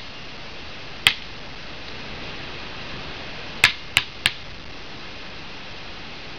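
Basketball impacts over a steady hiss: one sharp bang about a second in, then three quick bangs about a third of a second apart near the middle.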